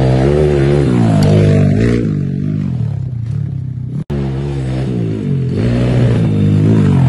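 Small dirt bike engine revving, its pitch climbing and falling again and again as the throttle is opened and eased off. The sound breaks off suddenly about four seconds in, then the revving picks up again.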